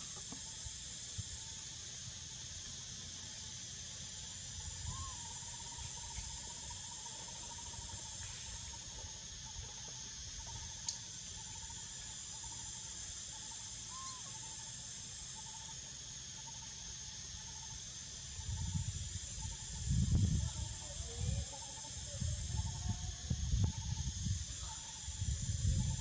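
A steady high-pitched insect chorus, with a faint thin chirping tone beneath it. From about two-thirds of the way in, irregular low rumbling knocks come in and grow louder.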